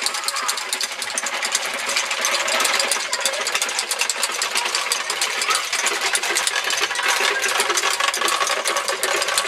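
Wooden Easter rattles (Osterklappern) clattering rapidly and without pause in a dense, continuous rattle. These rattles are sounded during Holy Week in place of the church bells.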